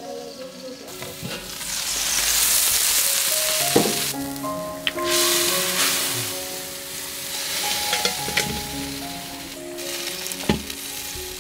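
Braising liquid bubbling and sizzling hard in a wok of pork intestines, swelling and easing, with a few sharp clicks of chopsticks against the pan. Soft background music with held notes plays underneath.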